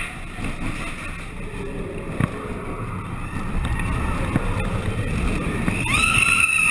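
Roller coaster train rumbling along its track through a dark tunnel, with a sharp clack about two seconds in. A high-pitched squeal starts near the end and is the loudest part.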